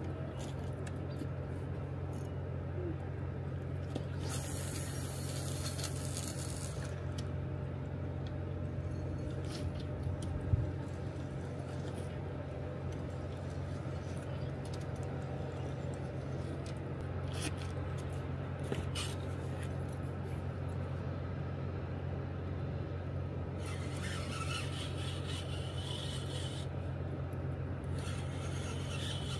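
Steady low rumble and hum of dam tailwater, with a few short whirring stretches from spinning fishing reels: once about four seconds in, and twice near the end. A single sharp knock comes about ten seconds in.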